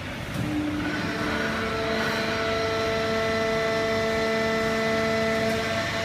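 Industrial waste-paper baling line running: the hydraulic horizontal baler and its feed conveyor give a steady mechanical drone. About a second in, a whine of several steady tones joins it and holds.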